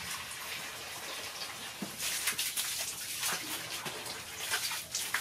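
Water from a garden hose pouring into a plastic bucket, a steady splashing hiss that grows louder about two seconds in, with small splashes on top.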